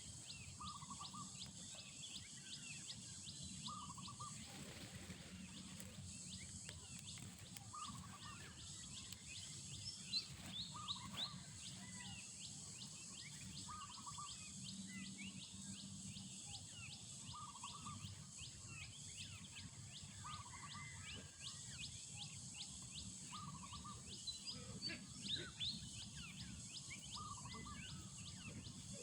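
Faint outdoor ambience of birds chirping, with one short call repeated about every two to three seconds over a steady high hiss.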